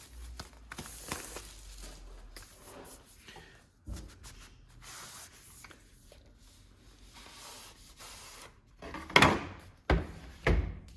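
Cardboard box of an Apple Magic Keyboard being opened and its contents handled: sliding and rubbing of cardboard and packaging, with three louder knocks near the end.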